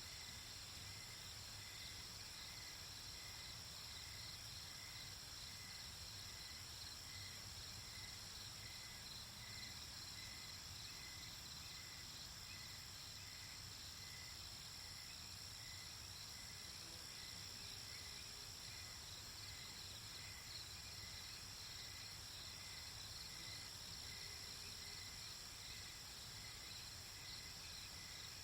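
Night ambience: a steady chorus of crickets and other insects, with a faint short peep repeating about once a second.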